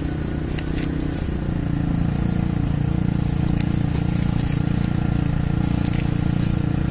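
A steady low engine hum, a little louder after the first second and a half, with a few faint light clicks over it.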